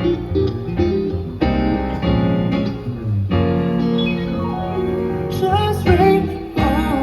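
Live band playing a song's instrumental intro: sustained keyboard chords over bass, with a wavering higher melody line coming in about five seconds in.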